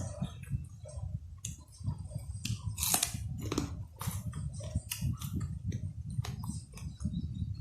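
Close-up chewing and biting of food: wet mouth clicks with crisp crunches, the loudest about three seconds in.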